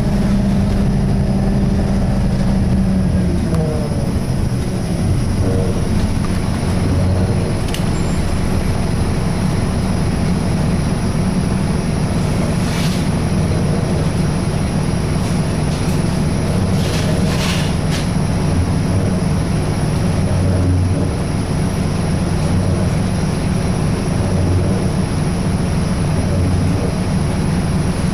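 Scania K230 bus with Wright Solar body heard from inside while under way: the engine and driveline run with a loud groaning tone, strongest in the first few seconds. A few brief rattles come from the bodywork later on.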